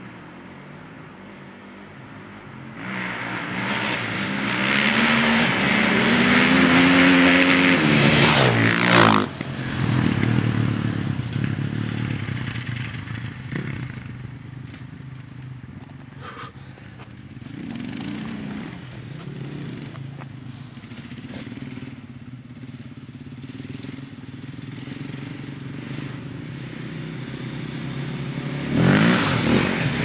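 KTM dirt bike engines revving hard on a dirt track. One bike builds up from about three seconds in and passes close with its pitch dropping around nine seconds. Engines keep running further off, and another bike comes in loud and passes near the end.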